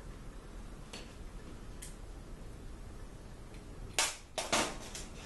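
Hand screwdriver driving small screws into a sheet-steel cabinet door panel: a few faint clicks, then a loud metallic clack and scrape about four seconds in.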